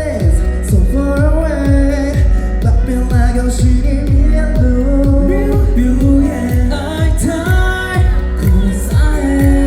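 Pop song performed live with singing over a steady kick-drum beat.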